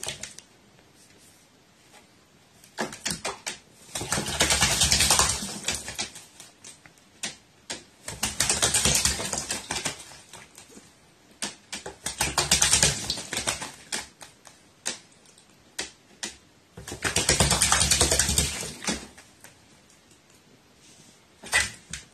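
A crow bathing, beating its wings in the water: four bouts of rapid splashing, each a second or two long, with scattered drips and taps between them.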